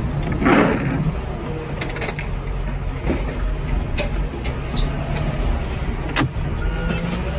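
Engine of a fork-equipped loader running steadily as the machine moves across the scrapyard, with a brief rush of noise about half a second in and a few sharp metal knocks.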